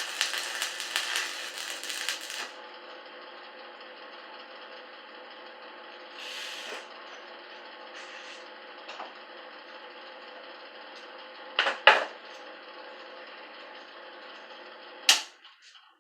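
Refrigerator compressor running with a steady hum. A loud rattle covers the first couple of seconds, sharp clicks come about twelve seconds in, and a loud click near the end is followed by the hum cutting off.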